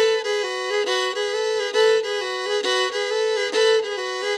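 Solo fiddle playing a driving bluegrass tag in double stops, two notes sounding together and changing every fraction of a second, bowed in a rhythmic shuffle pattern rather than straight single bows.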